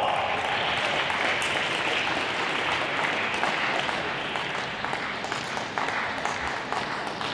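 Spectators clapping after a point, the applause loudest at first and slowly dying away.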